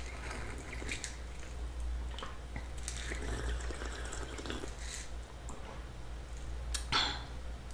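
Close-miked wet, dripping liquid sounds of a fizzy raspberry rose soda being sipped, with small scattered clicks and one louder sip about seven seconds in.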